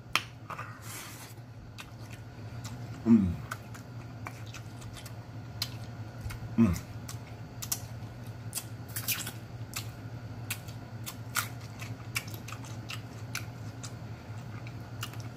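A person chewing a mouthful of kale greens and turkey tail with the mouth open: irregular wet lip smacks and clicks. Two short falling "mmm" moans come about three and six and a half seconds in, over a steady low hum.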